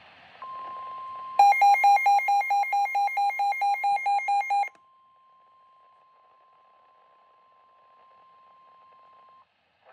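Emergency alert tones from a weather radio broadcast: a steady single-pitch alert tone, the NOAA Weather Radio warning alarm, starts just after the start. About a second later a loud electronic alarm joins it, beeping about four times a second for roughly three seconds. The steady tone then goes on faintly and cuts off shortly before the end.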